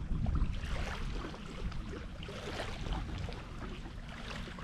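Wind rumbling on the microphone, strongest at first and easing off, with light water sounds and scattered small clicks along the shallow shoreline.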